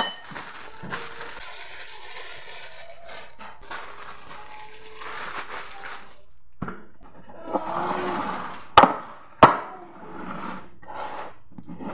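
Thin plastic bag crinkling and rustling as raw chicken thighs are worked in it, then two sharp knocks and a knife cutting on a wooden board near the end.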